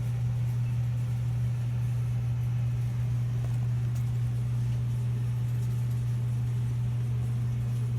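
A steady low hum at one unchanging pitch, with faint background noise.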